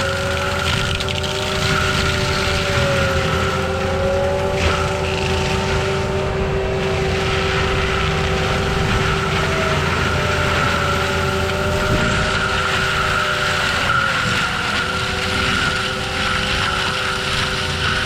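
Forestry mulcher on an ASV RT-120F compact track loader running continuously. It makes a steady machine drone with a whine whose pitch wavers slowly up and down.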